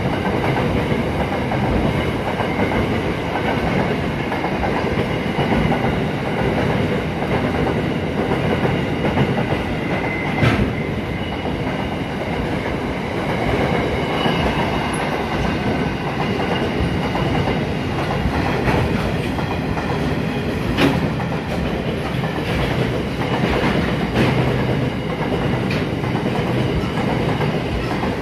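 Freight train of empty flat wagons passing at speed: steady rumble and clatter of the wagons' wheels over the rails, with a faint high wheel squeal and a couple of sharp knocks.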